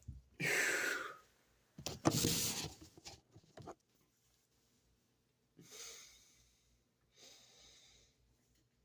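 A man's breath and throat: two loud, rasping blasts of about a second each in the first three seconds, then two softer breaths out later on.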